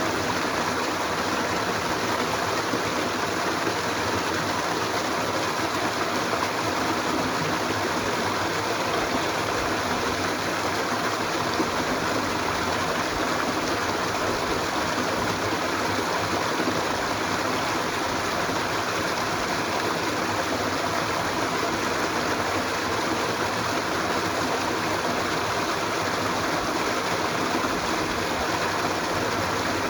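Stream water running steadily over its bed, an even rushing with no change in level.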